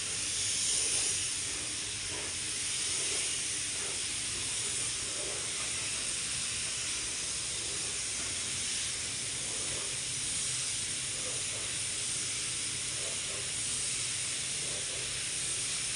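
Compressed-air gravity-feed paint spray gun hissing steadily as it sprays paint onto a car door panel.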